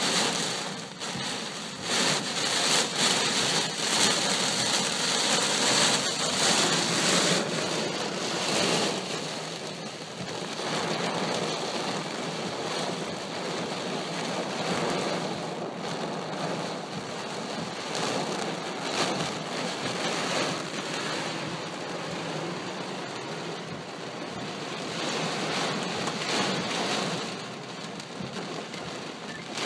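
Heavy thunderstorm rain pouring down, loudest for the first eight or so seconds, then steadier.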